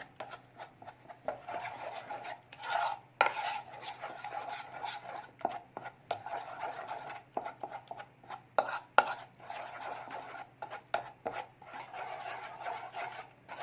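A utensil stirring gram-flour (besan) batter in a bowl, scraping and clinking against the bowl's sides with many quick clicks as the paste is worked lump-free.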